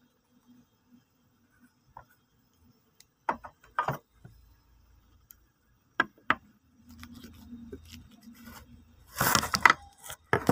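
A few sharp clicks and knocks, then a low, steady rustle and a loud burst of close handling noise near the end, as things are handled next to a phone.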